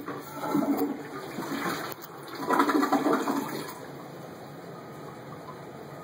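Two-piece toilet flushed by its front lever handle: a click of the lever, then a rush of water draining through the bowl in two louder surges, settling into a steady, quieter flow of water after about four seconds.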